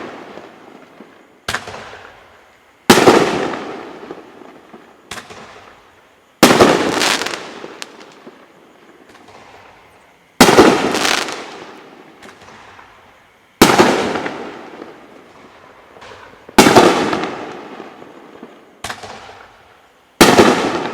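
Consumer aerial firework shells bursting one after another: six loud, sharp bangs about three to four seconds apart, with smaller pops between them, each bang fading away over a second or two.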